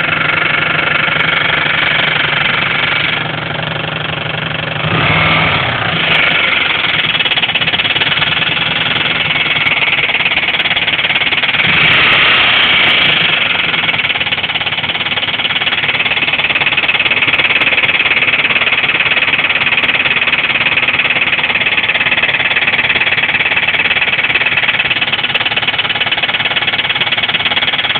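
Turbocharged Subaru WRX flat-four engine running with a heavy, rapid knock, with a couple of brief rises in revs. The owner suspects a blown big-end (connecting-rod) bearing.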